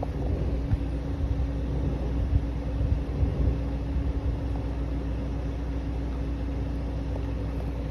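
BMW 330e's four-cylinder petrol engine running: a steady low rumble with a steady hum over it. This is the cold-start noise the owner describes as a soft roar or wave of vibration, which goes away once the oil is warm.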